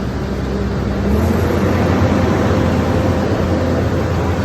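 Cat 320 excavator running a hydraulic brush shredder: steady diesel engine and hydraulic drone. About a second in, the pitch shifts and the sound grows a little louder, then holds steady.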